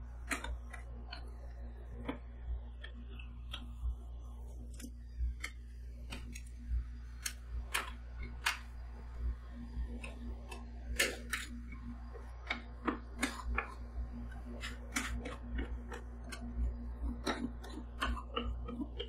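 Metal spatulas tapping and scraping on a frozen ice cream sheet on the stainless steel cold plate of a rolled-ice-cream pan: irregular sharp clicks and taps, several a second at times, over a steady low hum.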